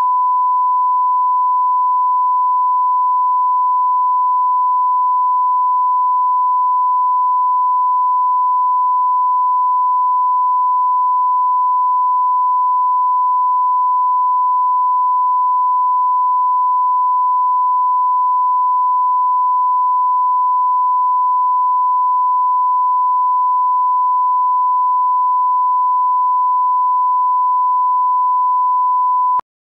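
Colour-bar reference test tone: one unbroken steady beep at a single pitch, stopping abruptly near the end.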